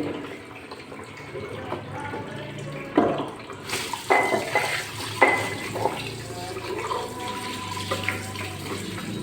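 Water running from a sink tap as dishes are washed by hand, with plates clinking against each other several times, a few of them ringing briefly. The water grows louder about a third of the way in.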